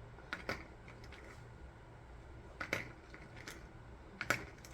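Light clicks and taps of small hard objects being handled, in three short pairs about two seconds apart.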